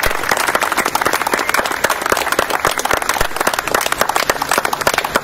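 A crowd applauding: many hands clapping densely and unevenly.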